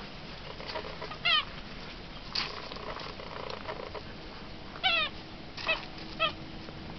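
Nine-week-old standard poodle puppy giving short high-pitched whines that slide down in pitch: one about a second in, then three close together near the end.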